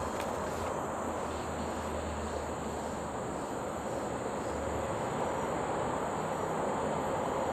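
Steady outdoor background hum, with insects chirring high above it in a pulse of about twice a second. A couple of faint taps from a paper juice carton being handled come just after the start.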